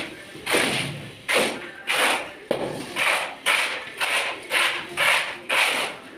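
Wooden straightedge drawn back and forth across wet cement mortar to level a floor screed: repeated scraping strokes, about two a second.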